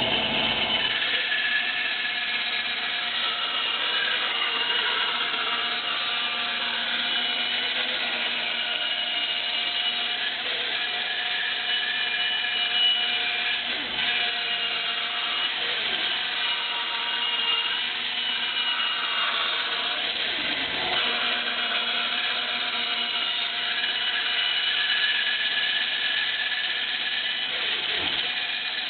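Power tool running steadily with a whine while it cuts a wooden ring, the workpiece turned on a pivot circle-cutting jig.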